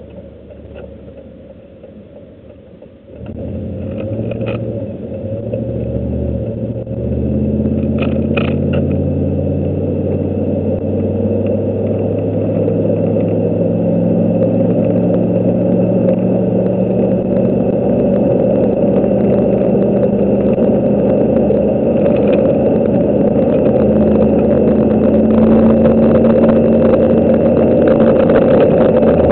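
Truck engine heard from inside the cab while the truck is driven. It comes up loudly about three seconds in, then runs steadily with its pitch slowly climbing. A few faint clicks sound between about four and nine seconds in.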